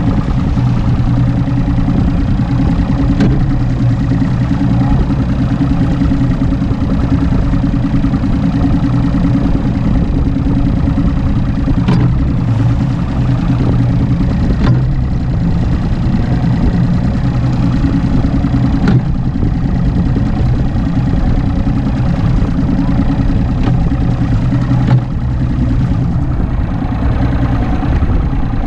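Mercury Optimax 200 HP outboard running steadily at idle speed, a low, even engine drone, with a few sharp clicks scattered through it.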